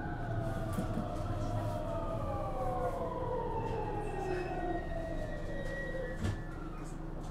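Traction inverter whine of a JR West 223 series 2000 EMU's Mitsubishi IGBT VVVF drive, several tones gliding steadily down in pitch over the rumble of the running train. A single short knock about six seconds in.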